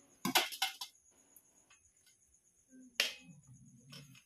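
Steel spoon clinking and tapping against steel thalis and a steel kadhai while semolina halwa is served and spread on the plates: a few quick clinks in the first second and one sharp clink about three seconds in.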